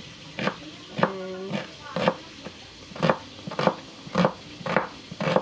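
Kitchen knife slicing a red onion on a wooden cutting board, the blade knocking on the board in a steady rhythm of about two strokes a second.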